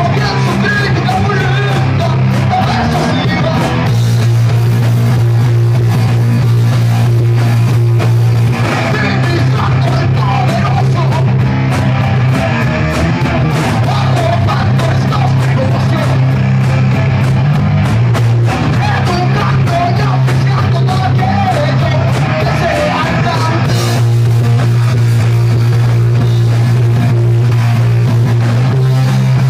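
Live rock band playing loud: drum kit and electric guitar over a heavy, steady low end, with a lead vocal sung into a microphone.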